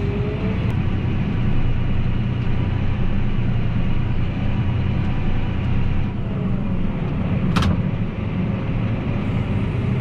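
John Deere 8R tractor's diesel engine running steadily, heard from inside the cab as the tractor reverses. A single sharp click sounds about three-quarters of the way through.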